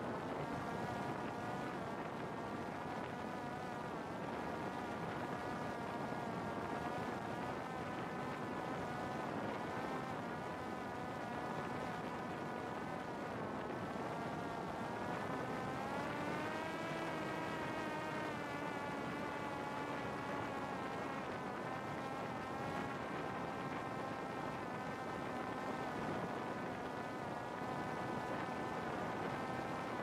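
Buzzing whine of a Parrot Disco fixed-wing drone's electric motor and propeller in flight, over a rush of air. The pitch wavers throughout and swings up and back down about halfway through as the throttle changes.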